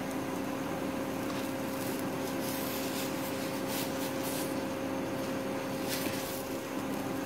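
Steady electric hum from the cooktop under a pan of cooking uttapam, with a faint sizzling hiss and a few soft scrapes of a plastic spatula sliding under the uttapam in the ceramic-coated pan midway through.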